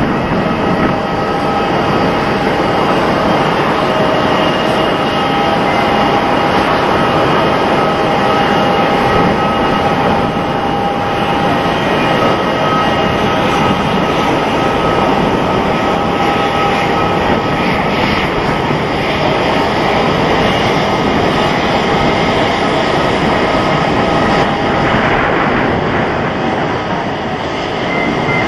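Airbus A350-900 taking off, its two Rolls-Royce Trent XWB turbofans at take-off thrust: a loud, steady rush of jet noise with a high whine held on a few fixed pitches.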